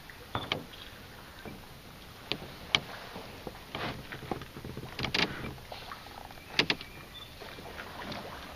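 Canoe being paddled: irregular sharp knocks and taps of the paddle against the canoe's side, between soft swishes of the strokes in the water.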